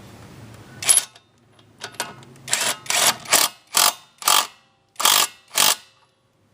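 21 V brushless impact wrench run in about nine short trigger blips, each a brief rattling burst of hammering, irregularly spaced over about five seconds.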